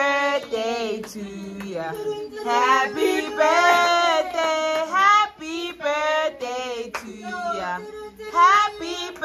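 A group of children's and women's voices singing a birthday song together to the birthday boy.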